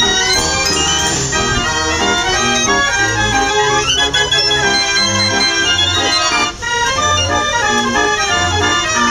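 Organ music playing: a melody over a bass note that comes round about once a second, with a short upward swoop in pitch about three seconds in.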